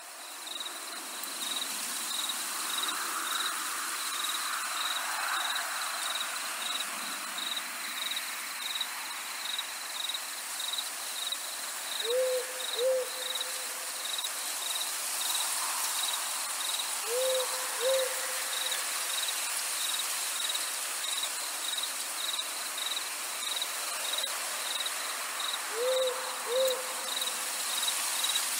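Night ambience: crickets chirping in a steady, evenly spaced pulse over a constant hiss, while an owl hoots three times, each time two short hoots in quick succession.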